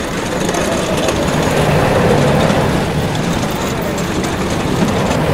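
Steady rolling noise of a boat running down a water-chute track, with crowd voices underneath.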